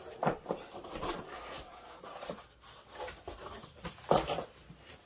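Cardboard shipping box being opened by hand: irregular rustling and scraping of the flaps, with short knocks, the loudest about four seconds in.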